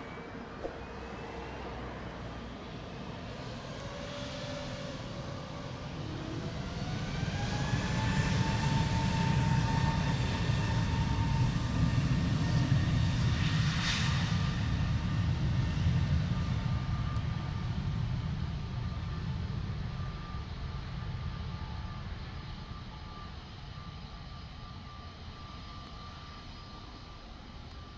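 Airbus A321neo's CFM LEAP-1A turbofans spooling up to takeoff thrust on the takeoff roll. A whine rises in pitch over a deep rumble, which grows to its loudest in the middle and then fades steadily toward the end.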